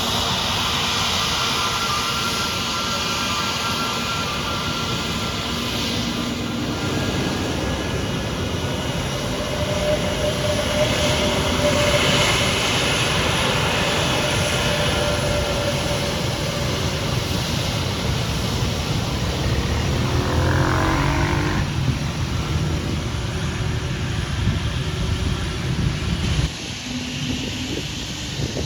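Airliner engines running loudly and steadily with a high whine, with a falling pitch glide about twenty seconds in; the level drops suddenly near the end.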